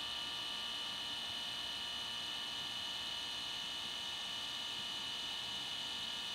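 Kodak Step mini photo printer printing, its feed motor giving a steady high whine as the photo slides out of the slot.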